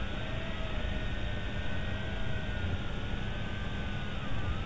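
Tarantula X6 quadcopter in flight: its motors and propellers whine in several separate tones that waver up and down in pitch, over a steady low rumble.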